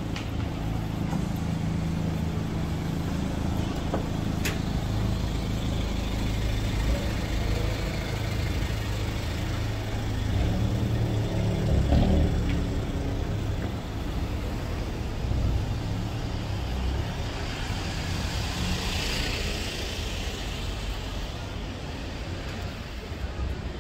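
Street traffic: vehicle engines running close by as a steady low rumble, with a brief hiss from a passing vehicle about three quarters of the way through.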